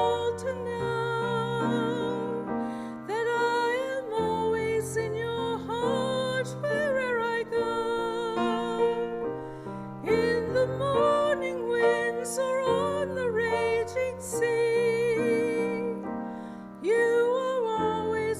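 Slow, gentle music: piano chords under a melody held with a light vibrato.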